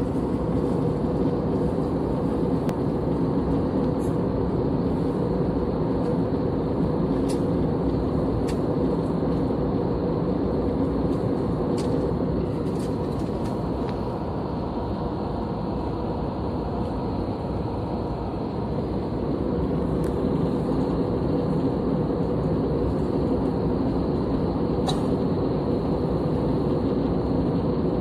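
Steady cabin noise of an Airbus A320-family jet descending: engine and airflow noise with a faint steady hum, a slight dip in level midway, and a few faint clicks.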